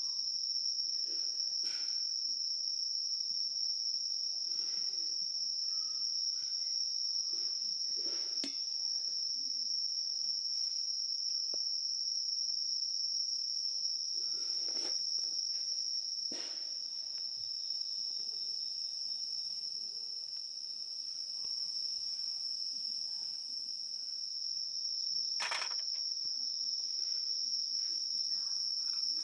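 Insects, crickets by their sound, keeping up a steady high-pitched chorus with no break, with a few faint clicks and knocks here and there.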